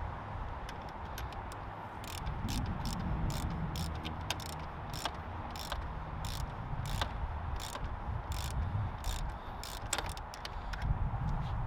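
Ratchet wrench clicking in short runs, about two or three clicks a second, while tightening the threaded top cap on a RockShox Boxxer fork leg.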